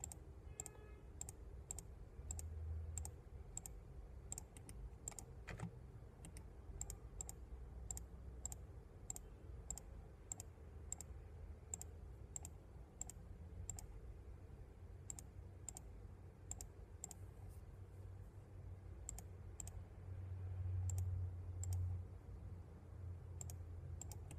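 Computer mouse button clicking repeatedly at an irregular pace, about one or two clicks a second, each click placing a point on an embroidery digitizing shape. A low steady hum runs underneath.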